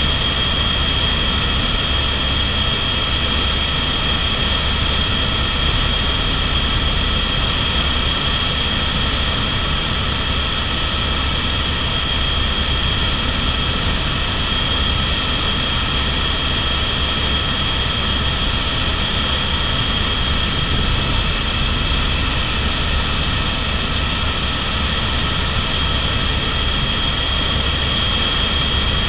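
Airbus AS350 (H125) single-engine helicopter in cruise flight, heard from inside the cabin: a steady, high turbine whine over the low rumble of the main rotor, unchanging throughout.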